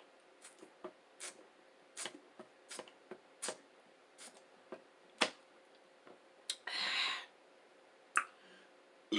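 Close-miked chewing of a veggie egg roll: a string of short, crisp mouth clicks and crunches, irregular at about one or two a second, with a brief hiss about seven seconds in.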